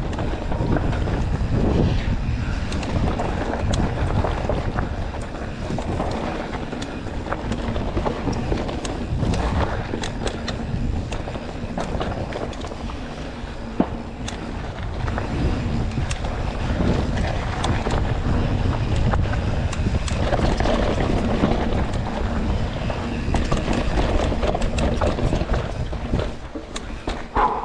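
Mountain bike riding a dirt single-track trail: wind buffeting the action camera's microphone over a steady rumble of tyres and frame, with scattered sharp knocks and rattles from bumps in the trail.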